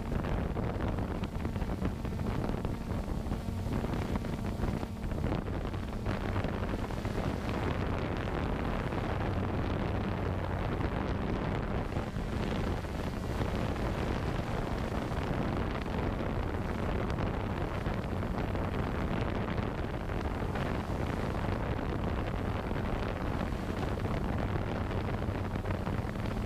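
Quadcopter drone's motors and propellers running steadily, heard through the GoPro mounted on the drone, with wind noise on the microphone. The low hum shifts slightly in pitch a few times.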